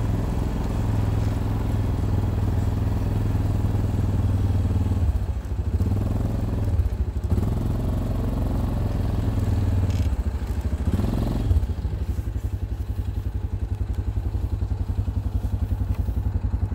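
ATV engine running as it drives along a snowy trail, with a deep, steady rumble. About eleven seconds in it settles into an even, pulsing idle.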